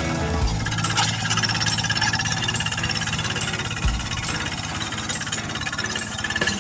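Single-cylinder diesel engine of a two-wheel hand tractor running steadily with a fast, even chugging as it works the flooded paddy mud.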